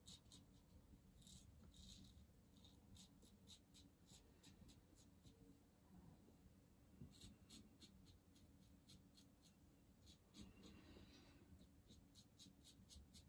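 Schick L injector razor scraping through lathered stubble, faint, in quick runs of short, crisp strokes with brief pauses between them.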